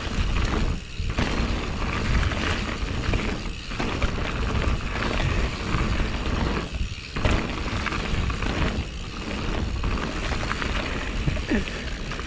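Canyon Spectral mountain bike riding fast down a dirt trail: tyres rolling over the dirt and the bike rattling, a steady noisy rush with a few brief lulls.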